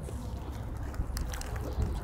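Wind rumbling on the microphone, with a few faint crinkles of paper food wrapping being handled.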